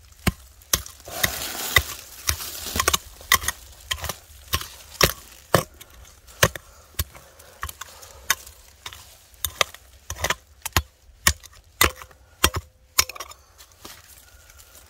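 Hand digging tool striking stony ground: repeated sharp strikes at an irregular pace, roughly two a second, with a short scraping rasp about a second in.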